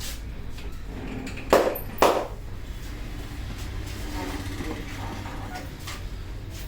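Two loud, sharp strokes of a vigorous head massage, about half a second apart, with faint rubbing and clicks of hands on hair and scalp around them.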